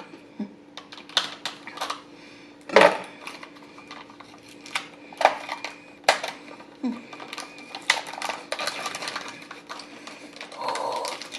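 Packaging of a smoked blue cheese being worked open by hand: scattered clicks and taps, several sharper ones, and a stretch of rustling crinkle about eight seconds in.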